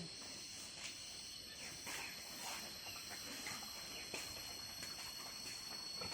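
Insects trilling in one steady high tone, with scattered faint clicks and knocks.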